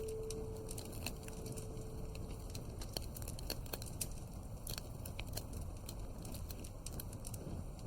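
Wood fire in a fireplace crackling, with irregular pops and snaps over a low rumble. A soft held music note fades out in the first couple of seconds.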